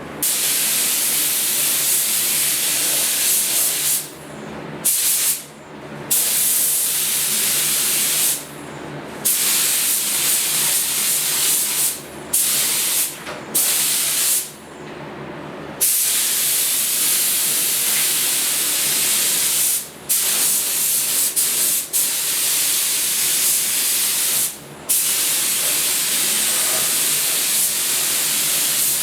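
Compressed-air spray gun hissing in repeated passes of one to four seconds, the trigger released briefly between each.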